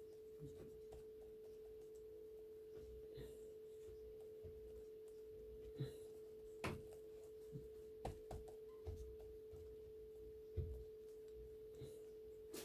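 Faint taps of a flat paintbrush dabbing gesso onto crumpled paper tissue on a painting canvas, a handful scattered over several seconds, over a faint steady hum.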